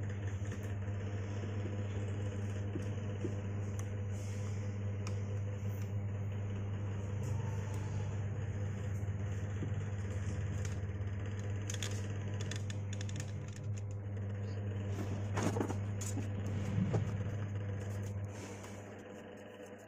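Steady low electrical hum from the powered active speaker, a deep buzz with a row of overtones, dying away near the end. A few short knocks and clicks from handling its boards and wiring.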